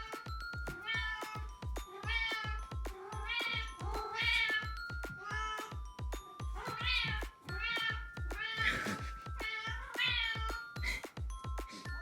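Domestic cat meowing over and over in short meows, roughly two a second, over background music with a steady beat.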